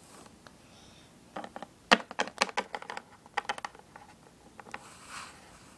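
A quick run of light clicks and taps, starting about a second and a half in and lasting a couple of seconds: small plastic toy figures being handled by hand and knocked against the table.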